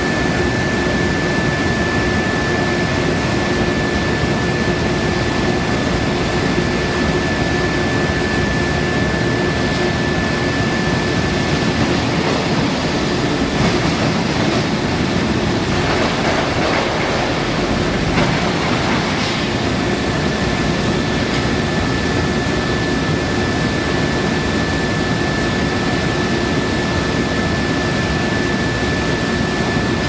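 Billet induction heating furnace running: a constant high-pitched whine held on one pitch over a steady industrial din, with a fainter lower hum. There is a rougher stretch of noise about halfway through.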